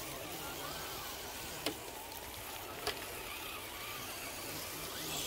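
RC rock crawler trucks working over rock: a steady noise with two sharp knocks about a second and a half and three seconds in.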